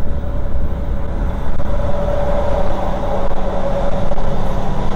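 Semi truck engine and road noise heard from inside the cab at highway speed: a steady low drone with a steady whine that grows louder about two seconds in and eases off near the end.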